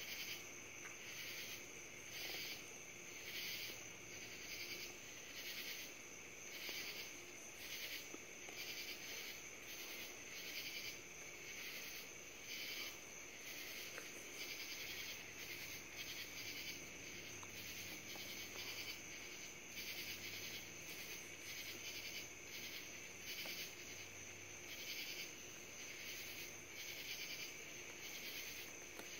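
Faint chorus of night insects: a steady high trill under a pulsing, rhythmic call that repeats about one and a half times a second.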